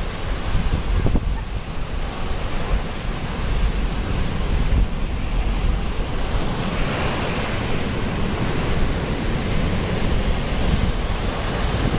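Ocean surf washing on a beach, with wind rumbling on the microphone; the hiss of the surf swells for a second or two about halfway through.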